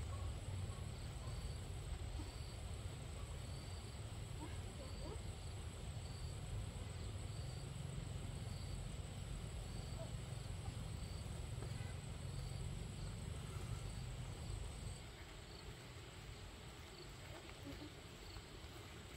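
Faint outdoor ambience: an insect chirping at a regular pace, with a high steady whine above it and a low rumble underneath that drops away near the end.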